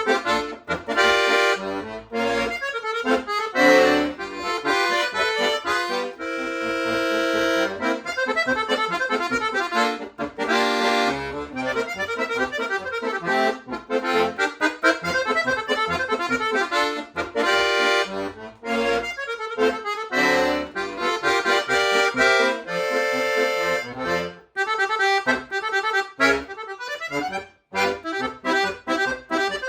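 Accordion playing a lively piece: quick short notes and runs alternating with held chords, with a couple of brief breaks near the end.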